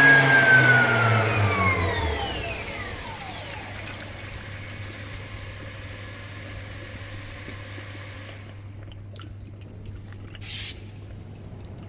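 CNC spindle motor spinning down after being switched off: its high whine falls steadily in pitch and fades over about four seconds, leaving a low steady hum.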